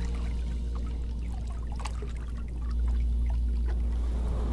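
Water lapping and trickling against a boat hull, with small scattered drips over a steady low rumble of wind.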